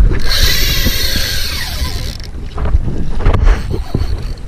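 Wind rumbling on the microphone. A high buzz from a Penn conventional fishing reel, working against a hooked fish, runs for about the first two seconds.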